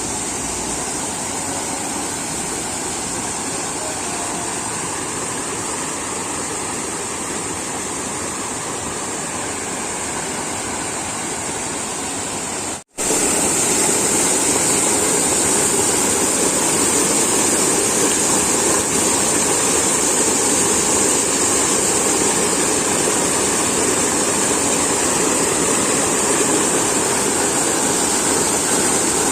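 Steady rushing of water, like a forest stream or small waterfall. About 13 seconds in it cuts out for an instant and comes back louder.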